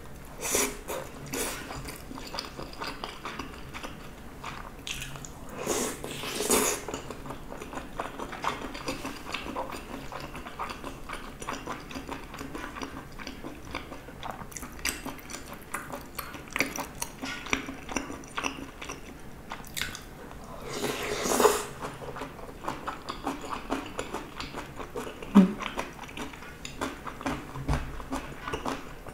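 Close-up eating sounds: a person biting and chewing a soft, mushy rice ball and spicy stir-fried gopchang, with a constant patter of small wet, sticky mouth clicks. Louder, longer bouts of chewing come about 6 and 21 seconds in, and a single sharp click about 25 seconds in.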